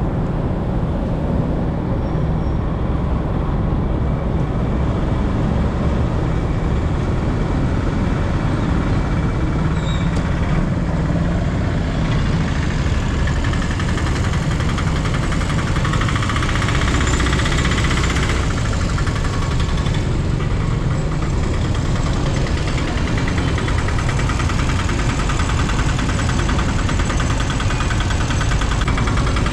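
Vehicle engine running steadily, heard from on board while riding, with constant road and wind noise and no breaks.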